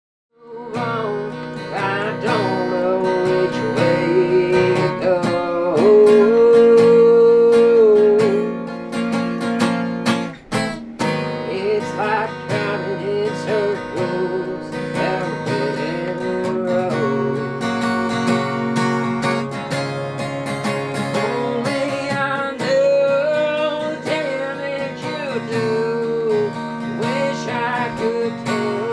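Background music: strummed acoustic guitar with a sung vocal line, in a country style, starting about half a second in.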